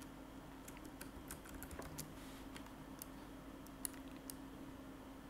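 Faint, scattered clicks of a computer mouse and keyboard being worked, over a low steady hum.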